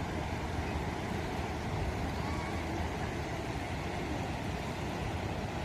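Floodwater pouring through the fully opened gates of a river barrage, a steady low rush without a break.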